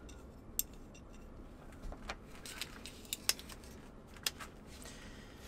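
Scattered small metal clicks and clinks as a ball valve is taken apart by hand, its handle and small fittings being worked loose.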